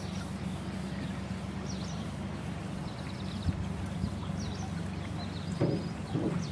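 Inboard engine of a Jeanneau Eau Claire 930 canal cruiser running at low speed with a low, steady note. Short bird chirps come in now and then.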